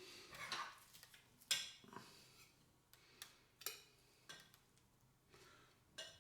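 Light kitchen handling sounds: scattered taps and clinks of utensils against dishes, the sharpest about a second and a half in.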